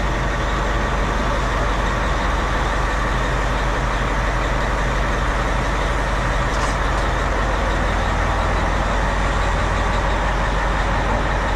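Heavy diesel engine running steadily at an even speed, with no change in pitch or load.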